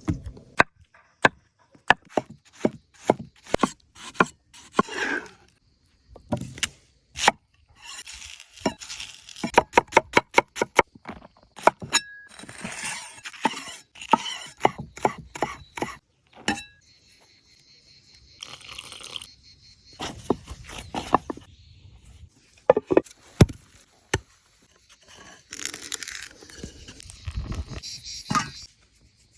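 Cooking sounds: sharp knocks in quick runs, like a knife striking a cutting board, with stretches of hissing and scraping between them and a few clinks.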